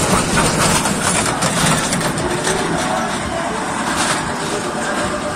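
Children's fairground train ride running on its track, heard from on board: a steady, noisy rumble and rattle, with faint voices.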